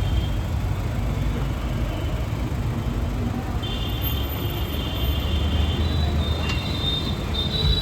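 Vehicle on the road with a steady low rumble of engine and traffic noise, and a thin high whine for a couple of seconds about halfway through.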